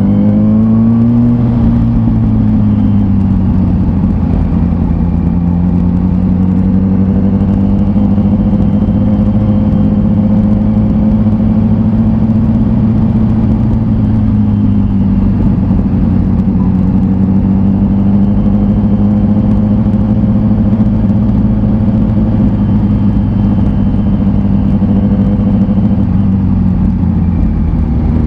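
2004 Yamaha R1's inline-four engine through its slip-on exhaust, revs climbing into the first second, then cruising at a near-steady pitch with small dips and rises in speed. Wind rumbles over the bike-mounted camera underneath.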